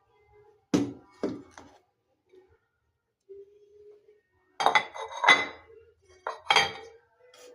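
Kitchenware being handled, clinking and clattering with a ringing ring after each knock. There are three quick knocks about a second in, then a louder run of clatters around five seconds, and another near the end.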